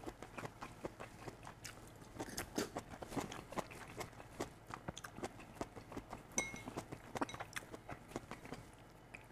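A person chewing a mouthful of stir-fried chicken hearts close to a lapel microphone: a run of soft, irregular wet clicks and small crunches.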